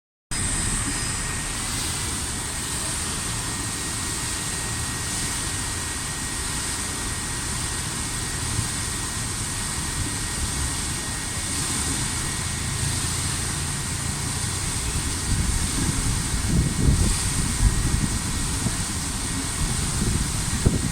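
Steady rushing and splashing of water from an outdoor fountain, with uneven low rumbling growing louder from about fifteen seconds in.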